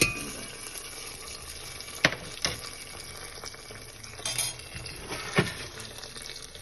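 Hot tempering of mustard seeds, lentils and curry leaves in oil sizzling in cooked dal as it is stirred in, with a spoon knocking against the pot several times.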